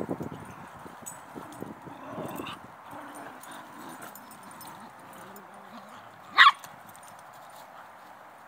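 Dogs playing, with faint scuffling, then a single short, loud bark about six and a half seconds in.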